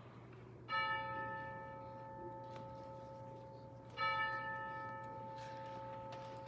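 A church bell tolled twice, about three seconds apart, each stroke ringing on and slowly fading.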